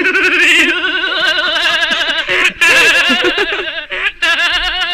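A loud, exaggerated laugh done as a wavering, goat-like bleat, in three stretches with short breaks about two and a half and four seconds in.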